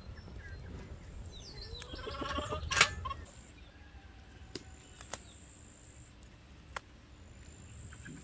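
A short bleating animal call about two seconds in, ending with a sharp click. After that come faint bird chirps and a few light clicks.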